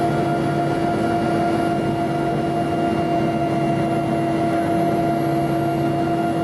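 Helicopter engines and rotor heard from inside the passenger cabin, running steadily: a constant rumble with several held whining tones.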